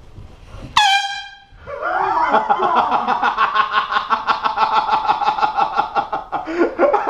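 Hand-held air horn blasting: a short blast about a second in, then after a brief gap a much longer blast of about five seconds with a rapid flutter.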